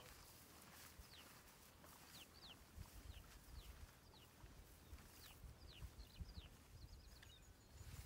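Faint calls of a small bird: about a dozen short, high notes, each sliding downward, some in quick pairs, over soft low thuds.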